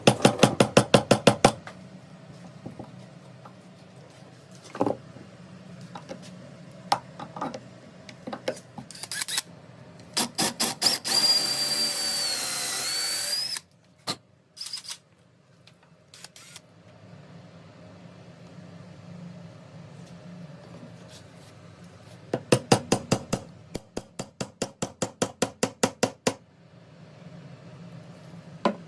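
Power drill work: a run of rapid clicking at the start, scattered knocks, about three seconds of the drill running with a high whine near the middle, then another run of rapid clicks, about five a second, near the end.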